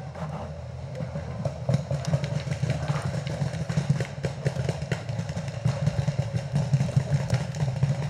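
Paintball markers popping in irregular single shots and short strings across the field, over a steady low rumble.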